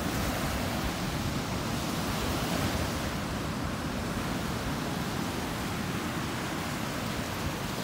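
Ocean surf breaking and washing up a sandy beach: a steady, even rush of water.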